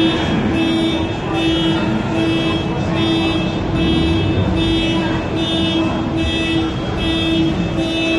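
Car alarm pulsing with a steady repeating tone, about one and a half pulses a second, over car engines running at low speed.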